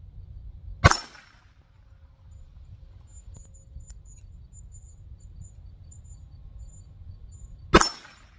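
Two handgun shots from a .380 pistol, about seven seconds apart, each a sharp crack with a short echoing tail.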